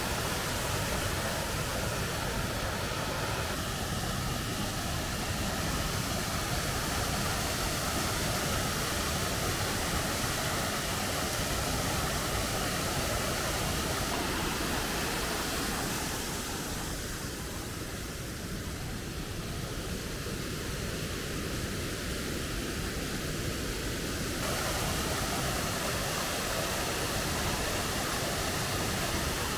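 Steady rushing of a waterfall, an even wash of noise whose tone shifts abruptly a few times.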